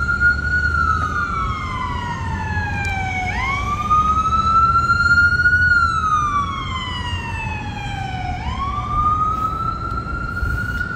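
Emergency vehicle siren wailing, its pitch sliding slowly up and down about every five seconds, over a low rumble.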